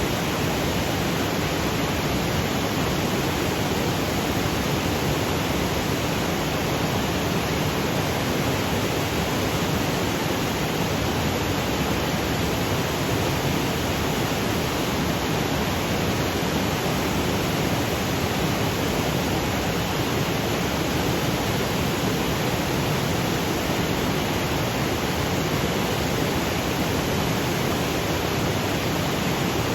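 Waterfall cascading over granite boulders: a steady, even rush of water that does not change.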